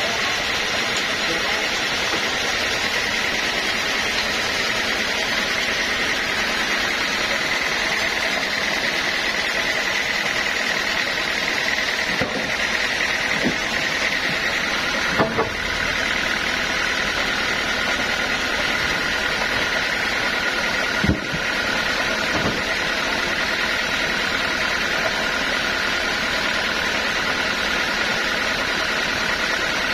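Sawmill saw machinery running steadily, with a high whine that shifts lower about halfway through. A few short knocks sound in the middle.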